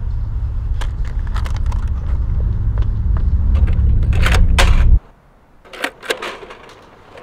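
A loud low rumble swells for about five seconds and then cuts off suddenly. Over it, and in the quiet after it, come the sharp clicks and clacks of a cassette being loaded into a portable boombox's tape deck and its keys being pressed.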